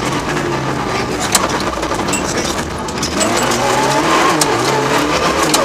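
Mitsubishi Lancer Evo VII rally car's turbocharged four-cylinder engine, heard from inside the cabin, running at lower revs through a tight junction corner. About three seconds in it rises in pitch and gets louder as the car accelerates out of the corner. A few sharp clicks can be heard now and then.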